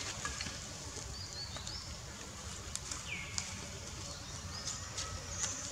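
Outdoor ambience with an animal call that sweeps down in pitch and then holds briefly, repeated about every three seconds. Short high chirps and faint scattered ticks sound between the calls over a steady low background rumble.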